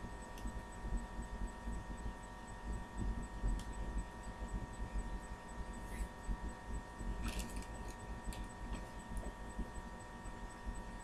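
Steady electrical hum with a low rumble, and a few faint rustles and taps of a small doll head being handled.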